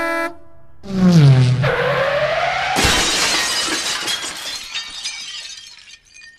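Cartoon car-crash sound effect: a car horn honk cuts off, then a pitched screech that falls and then rises, and about three seconds in a loud crash with glass shattering and tinkling away.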